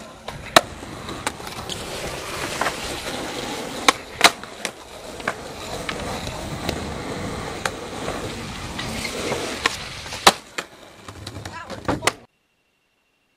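Skateboard wheels rolling on concrete, with a series of sharp clacks from the board and trucks striking the ground and ledge. The sound cuts off suddenly near the end, leaving only a faint steady high tone.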